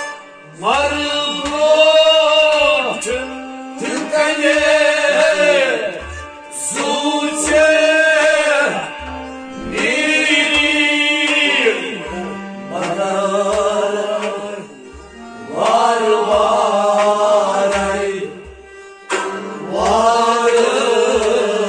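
Kashmiri Sufi kalaam sung by a male voice in phrases of two to three seconds with short breaks between them. Low drum beats fall about once or twice a second, over a steady held note.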